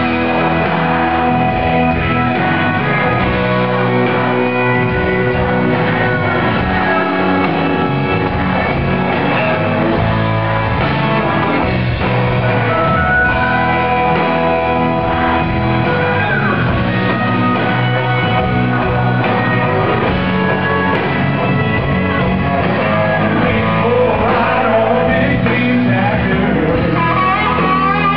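A live country-rock band playing loud and steady: a man singing into a microphone over electric guitars, heard from within the crowd.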